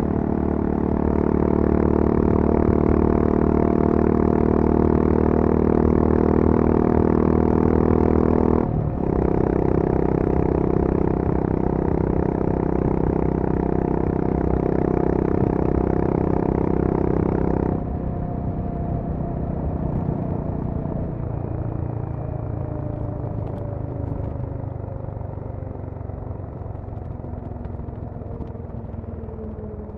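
Honda CB350 RS's single-cylinder engine through its stock exhaust, heard from the rider's seat, running hard at full throttle with a brief dip about nine seconds in. At about eighteen seconds the note suddenly drops in level and then falls slowly in pitch as the bike comes off the throttle.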